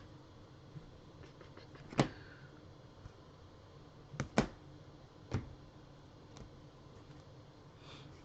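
Trading cards being sorted and set down on a table, giving a few separate sharp taps and clacks. The loudest comes about two seconds in, a quick pair follows just after four seconds, and another comes a second later.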